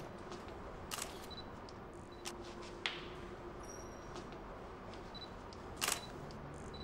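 Single-lens reflex camera shutter clicking several times at uneven intervals, the loudest click near the end, over a low steady background hum.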